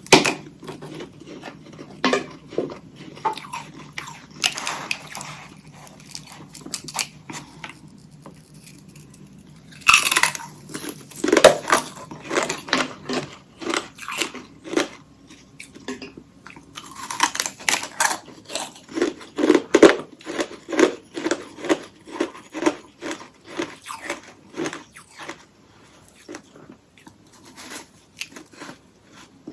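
Hollow ice sticks coated in freezer frost being bitten and chewed close up: a few loud crunching bites, then runs of quick, even crunchy chewing. A faint low hum underlies the first part and stops about halfway through.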